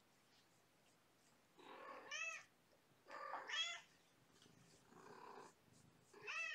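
Kitten meowing: three short, high mews, each rising and falling in pitch, about two seconds in, again a second and a half later, and once more near the end.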